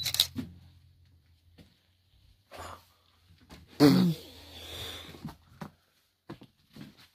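Footsteps and small knocks inside an empty railway carriage, with one loud sudden noise about four seconds in that trails off over about a second.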